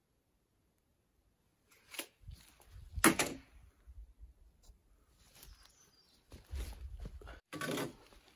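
After a near-silent start, a few irregular wooden knocks and thuds, the loudest about three seconds in and another cluster near the end, with low rumbling between them: a log porch railing and hand tools being handled and boots moving on a plank deck.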